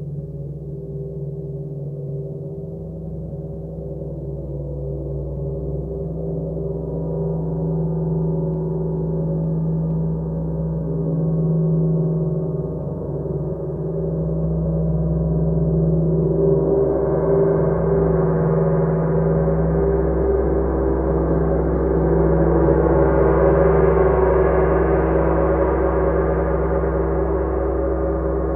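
A 36-inch Sun Gong is played continuously with a soft felt mallet, giving a sustained, building wash of overlapping tones over a deep low hum. About halfway through, the higher overtones bloom and swell, growing loudest in the last third, then ease a little near the end.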